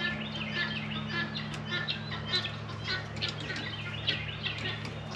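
Birds chirping over and over above a steady low hum, with a single light tap about four seconds in.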